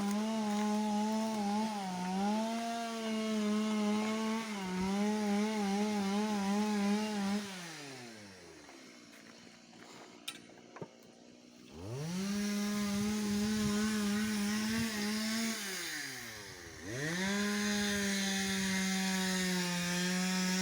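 Two-stroke chainsaw cutting firewood at full throttle, its pitch wavering under load. About seven seconds in it winds down to idle. It revs up again about twelve seconds in, eases off briefly around sixteen seconds, and revs up once more.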